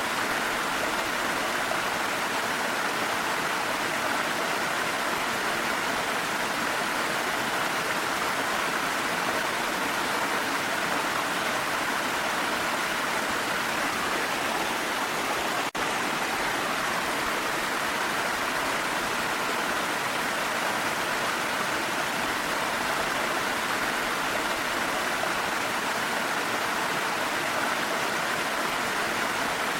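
Waterfall flowing with a steady, even rush of water, with a momentary dropout a little past halfway.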